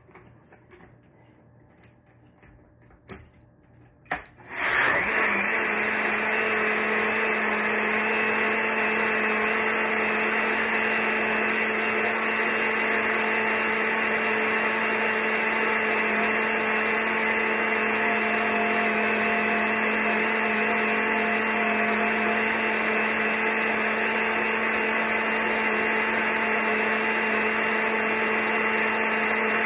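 Personal bullet-style blender: a couple of clicks as the cup is seated on the base, then about four seconds in the motor starts, quickly comes up to speed and runs at a steady whine, blending cucumber pieces into a smooth green drink.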